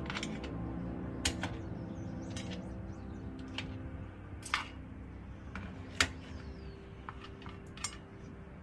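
Metal tongs clicking and whelk shells knocking against a stainless steel platter and a cast iron pan as baked whelks are moved one at a time. A handful of separate sharp clicks, the loudest about six seconds in.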